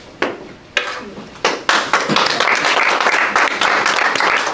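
Small audience applauding: a few separate claps first, then steady clapping from about a second and a half in.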